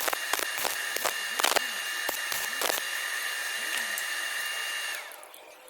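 Handheld electric power tool running at a steady high whine, with irregular sharp metallic clicks and knocks over it, as it works on a stuck screw in the head. The motor stops about five seconds in and winds down.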